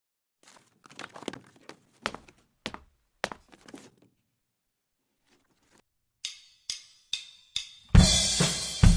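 Scattered light clicks and knocks, then a pause. Four evenly spaced sharp clicks follow, like a drummer's count-in, and a rock drum kit comes in loud about a second before the end.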